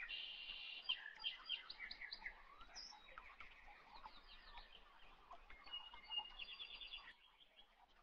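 Faint bird chirps and short rapid trills, several calls overlapping, one quick trill standing out near the end.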